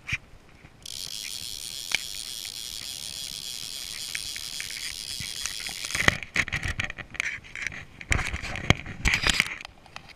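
Fly reel's click-pawl ratchet buzzing steadily for about five seconds, line running through it. It is followed by a few seconds of irregular sharp clicks and scrapes from handling the rod and line.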